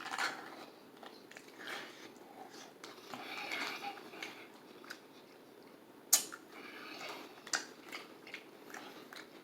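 A person chewing food close to the microphone, with soft wet mouth sounds and scattered crackles, and one sharp click about six seconds in.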